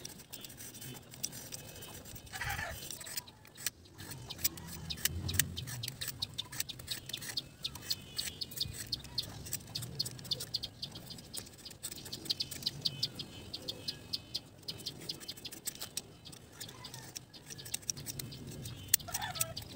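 A knife shaving and scraping a thin bamboo strip, making a run of short rapid scraping strokes that is densest in the middle. A bird calls briefly near the start and again near the end.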